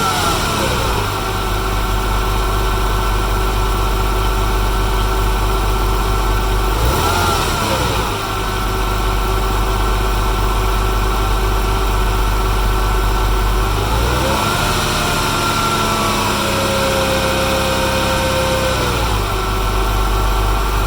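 Porsche 996 flat-six engine idling after a cold start, with a ticking noise. The revs fall back at the start, rise briefly about seven seconds in, then rise again about fourteen seconds in and hold for a few seconds before dropping back to idle.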